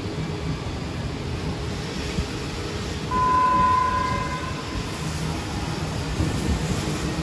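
Passenger carriages rolling slowly past with a low rumble as the train departs. About three seconds in, the HXD1D electric locomotive's horn sounds once for about a second and a half, the loudest sound.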